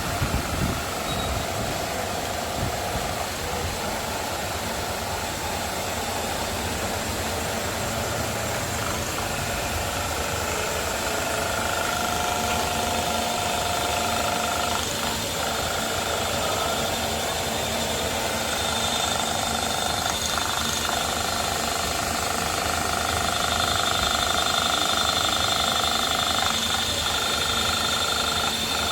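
CNC milling machine cutting a plastic injection mould: steady machining noise with a high whine that holds for several seconds at a time, breaks off and comes back.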